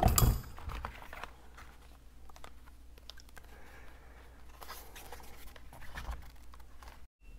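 Handling noises of a black plastic motorcycle fairing panel fitted with rubber edge trim: soft scrapes, rustles and small clicks as it is turned and worked in the hands. A single loud knock at the very start as a tool is set down on the bench.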